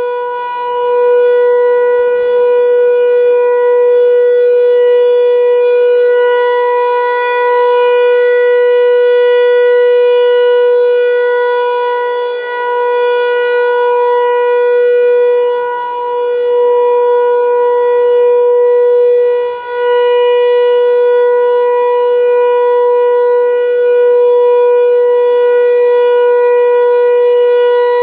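American Signal Tempest T-128 rotating mechanical siren sounding its steady Alert signal. It holds one unchanging pitch while the loudness swells and fades as the horn head turns.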